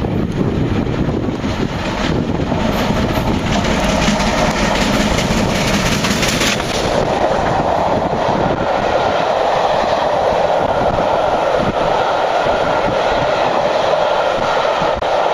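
Merchant Navy Class steam locomotive 35028 'Clan Line', a three-cylinder Bulleid Pacific, passes close beneath, followed by its long train of Pullman coaches rolling past. The sound settles into a steady running noise about seven seconds in as the coaches go by.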